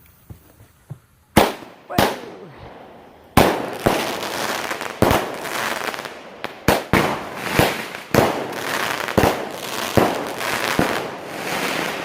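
A large consumer firework going off: two sharp bangs, then from about three seconds in a rapid string of bangs with a hissing crackle between them.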